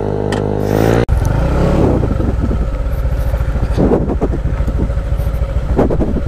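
A vehicle's engine running steadily while under way, with a brief sudden dropout about a second in.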